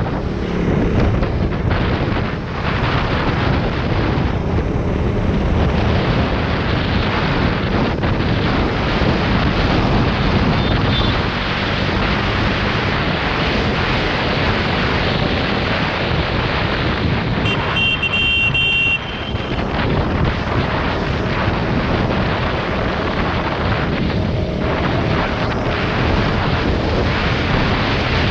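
Heavy wind buffeting on the action camera's microphone at riding speed, over the KTM Duke 390's single-cylinder engine running. A brief high tone sounds about two-thirds of the way in.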